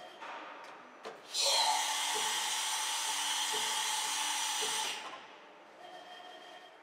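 Schaffner VC12 vertical machining center running: a loud rushing hiss starts suddenly about a second in, holds steady for a few seconds, then dies away.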